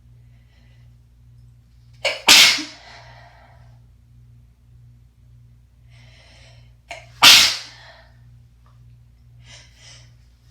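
Two rough, congested sneezes from someone with a cold, about five seconds apart, each set off by a short sharp catch of breath. Faint breathing builds up before the second sneeze and again near the end.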